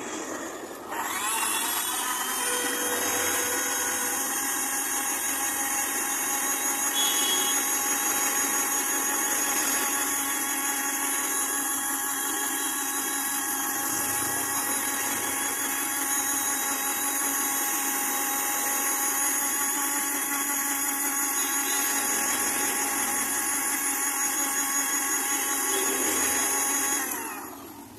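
Electric Sujata mixer-juicer blending pineapple into juice, its motor spinning up to a steady high-speed whine about a second in and running on steadily. It winds down near the end.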